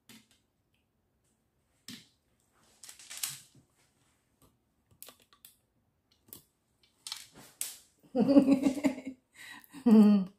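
Scattered light clicks and rustles as a glass of smoothie is handled and clothing brushes close to the microphone, then two short wordless vocal sounds from a woman near the end.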